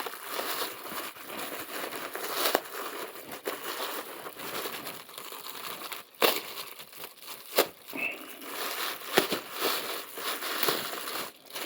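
Packaging crinkling and rustling as a parcel is unwrapped by hand, with a few sharp clicks and knocks.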